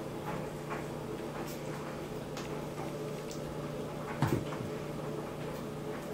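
Small hooves of newborn goat kids tapping and clicking on a hardwood floor, with one louder knock about four seconds in, over a steady low hum.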